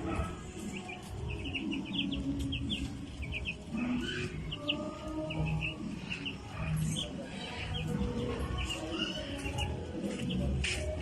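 A flock of young broiler chicks peeping: many short, high chirps overlapping without pause, over a steady low rumble.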